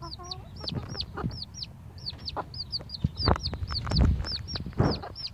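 Silkie chick peeping steadily, a string of high, downward-sliding peeps about three a second, with a few low clucks from the silkie hen near the start. Low thumps and rumbling come in about three seconds in.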